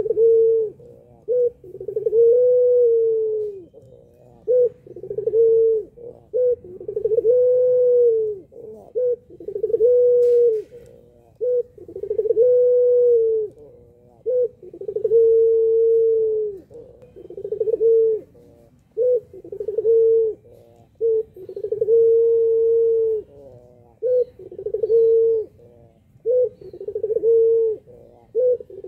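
Puter pelung collared dove cooing over and over: short notes followed by a long drawn-out coo, the phrase repeating about every two to three seconds.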